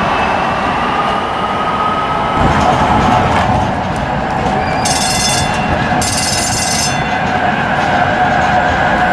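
TriMet MAX light rail train running along the track, with a steady whine and squeal from its motors and wheels that drifts slightly in pitch. Two short bursts of high ringing come about halfway through.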